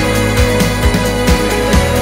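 Background music with a steady drum beat, a little over two beats a second, over sustained bass notes.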